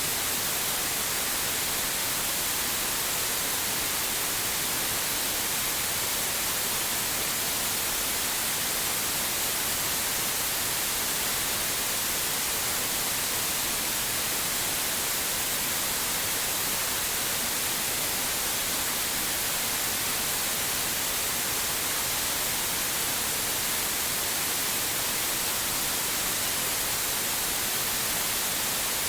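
Digitally generated white noise: a steady, even hiss with no change.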